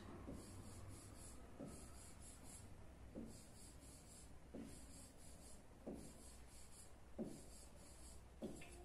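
Faint rubbing strokes of drawing on an interactive display's glass screen, one short stroke about every second and a bit, as chromosome shapes are sketched one after another.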